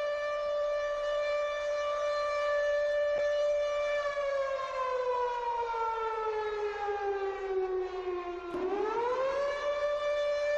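Civil defense siren wailing: a steady tone that slowly falls in pitch over about four seconds, then swings quickly back up to its first pitch near the end.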